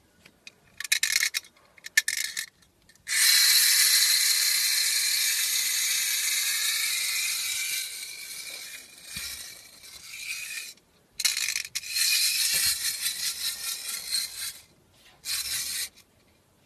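Clockwork wind-up tin toy fire truck: the key is wound with a few short bursts of ratcheting clicks, then the spring-driven clockwork runs with a steady whirr that slowly weakens for about seven seconds and cuts off suddenly. A few seconds later the mechanism runs again in shorter bursts.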